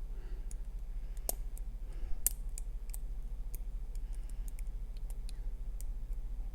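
Lever pick and tension wrench working the levers of a 10-lever Ingersoll padlock: sparse, irregular small metallic clicks and light scraping as levers are lifted, with two sharper clicks about a second and two seconds in.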